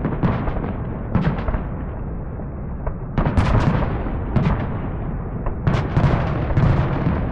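A barrage of fireworks going off: many sharp bangs and cracks overlapping over a continuous rumble, with a dense cluster of loud bangs about three seconds in and another near six seconds.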